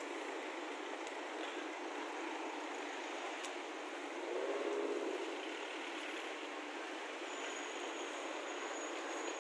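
Steady hum of city street traffic, with a brief louder swell about halfway through and a thin high whine in the last two seconds.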